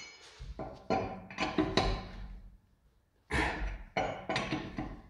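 Steel wrench clanking and knocking on the wheel bolts as a car's rear wheel is bolted on: several separate metallic knocks with short ringing, then a pause a little over two and a half seconds in, then more knocks.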